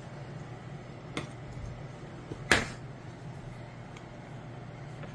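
Kitchen utensils or dishes knocking on a counter: a light click about a second in and a louder sharp knock midway, over a steady low hum.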